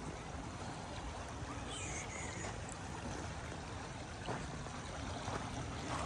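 Shallow river running over a gravel bed: a steady rushing, babbling wash of water. A faint high glide, falling in pitch, passes about two seconds in.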